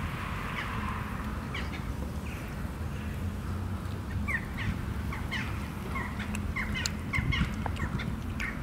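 Small birds chirping in many short, quick notes, growing busier from about halfway through, over a low steady rumble.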